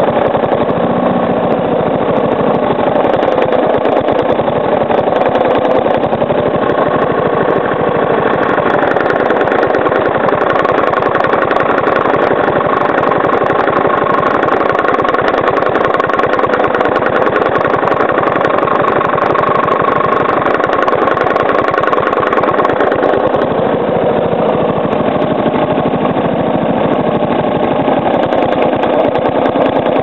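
Briggs & Stratton single-cylinder lawnmower engine running steadily with a knock from the crankcase. The owner is unsure of its cause and suspects improper combustion or a worn, loose part; the oil is not low.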